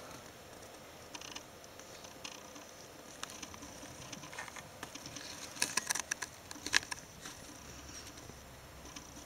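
Pet rats scrabbling over bedding: scattered light scratches and rustles, with a quick flurry of sharp clicks and scratching about six to seven seconds in, over a faint steady hiss.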